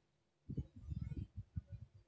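A quick run of low, muffled thumps and rumble, starting about half a second in and lasting about a second and a half.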